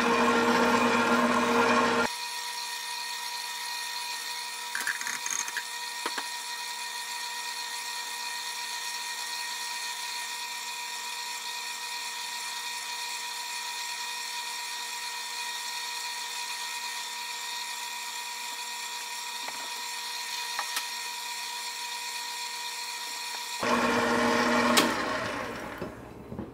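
KitchenAid bowl-lift stand mixer's motor running with the dough hook turning through flour and liquid in the steel bowl, a steady whine. It is louder for the first couple of seconds and again briefly near the end, with a few faint clicks about five seconds in.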